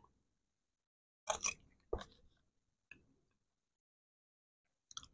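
A few short, soft eating noises while spooning up and eating chicken rice porridge: a quick pair of clicks about a second and a half in, a single click at about two seconds, and a fainter one near three seconds.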